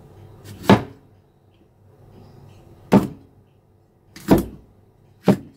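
Cleaver chopping through chilies and striking a thick round wooden chopping block: four sharp, heavy knocks at uneven intervals, about a second in, at three seconds, at four and a quarter, and at five and a quarter seconds.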